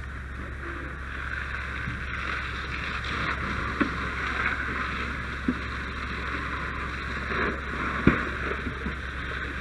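Steady mechanical drone with a hiss over it, and a few light knocks, the sharpest about eight seconds in.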